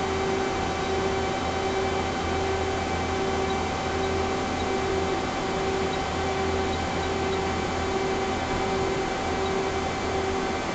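Okuma LC 20 CNC lathe running: a steady machine hum with a constant whine and a tone that pulses on and off at an even beat, about three pulses every two seconds.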